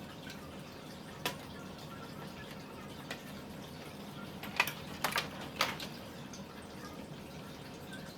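Several short, sharp clicks and taps of hard parts being handled during PC assembly, a cluster of four in about a second near the middle, over a steady low room hiss.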